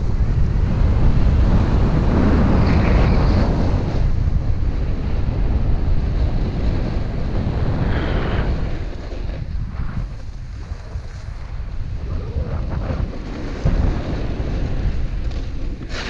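Snowboard sliding and carving over hard-packed groomed snow, the edge scraping and hissing, with wind buffeting the action camera's microphone. The noise is loud at first and eases off after about nine seconds.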